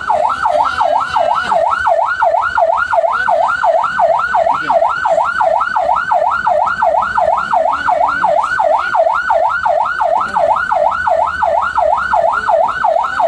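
Ambulance siren on a fast yelp, its pitch sweeping up and down about three and a half times a second, loud and unbroken.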